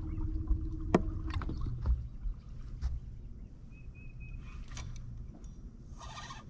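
Sounds aboard a bass fishing boat: a steady hum that stops about a second in, a low rumble underneath, and several sharp clicks and knocks.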